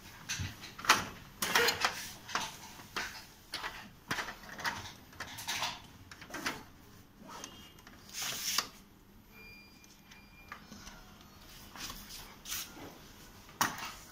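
Plastic parts of a Canon imageRUNNER ADVANCE 4525 copier's toner compartment and a toner cartridge being handled during a toner change: irregular clicks, knocks and short rustles. The noise quiets for a few seconds after the middle, and there is a sharp knock near the end.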